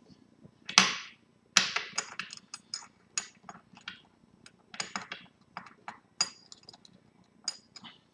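Sharp metallic clicks and clinks of a watch main plate being fitted and settled into a small metal movement holder with tweezers. Two louder clicks come about a second in, followed by a string of lighter taps.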